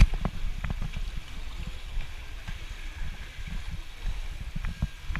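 Underwater pool sound picked up by a camera in a waterproof housing: a muffled low rumble of moving water with irregular soft thuds and a few sharp clicks.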